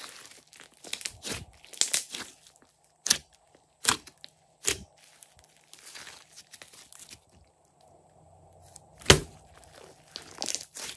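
Thick slime being kneaded and stretched by hand, with a wet crackling and several sharp pops, the loudest about nine seconds in.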